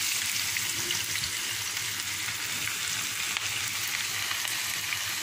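Sliced onion deep-frying in a pan of hot oil: a steady sizzle with fine crackling.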